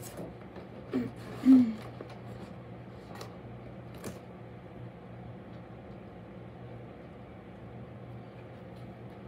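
Handling noise as a cross-stitch piece is pulled from its project bag: a few light clicks and faint rustling over a steady low room hum, with a brief vocal sound about a second and a half in.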